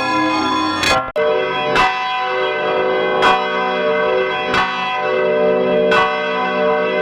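Church bells struck one stroke at a time, each stroke ringing on under the next. About a second in, the sound cuts off abruptly and a new bell recording starts, struck roughly every second and a half.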